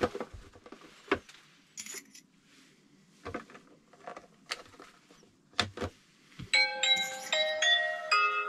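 Scattered light clicks and taps of a plastic RC buggy body being handled and fitted onto the chassis, then a chiming, bell-like melody of background music starting about two-thirds of the way in.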